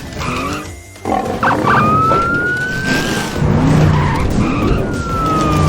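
Cartoon chase sound effects for a police car setting off: engines running and tyres skidding. A long whistle-like siren tone rises for about two seconds, then falls again near the end, over background music.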